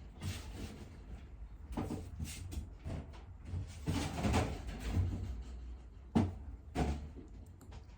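A handful of knocks and clatters of things being handled, like a cupboard or door opening and closing, loudest a few seconds in and again near the end.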